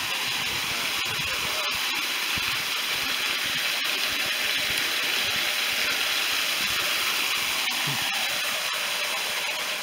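Small waterfall spilling over a sandstone ledge into a shallow pool: a steady hiss of falling, splashing water, with a few faint clicks.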